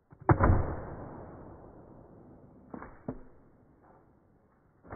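Axe splitting firewood rounds on a chopping block: a loud sharp crack with a long fading tail, then two quick knocks close together about three seconds in and another strike near the end.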